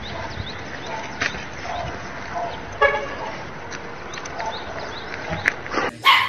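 A single short vehicle horn toot about three seconds in, over steady outdoor background noise. A louder brief noise comes right at the end.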